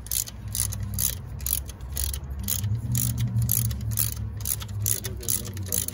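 Hand ratchet wrench with an E12 external Torx socket worked back and forth to loosen an alternator mounting bolt: quick runs of pawl clicks about three times a second, over a steady low hum.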